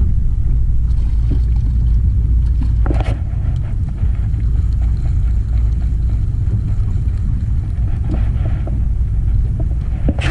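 Steady low rumble of wind buffeting the microphone in an open jon boat, with a sharp knock about three seconds in and another near the end.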